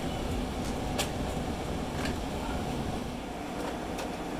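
A few sharp plastic clicks as circuit breakers are pressed and snapped onto the bus of a residential electrical panel, about one and two seconds in, over a steady low background rumble.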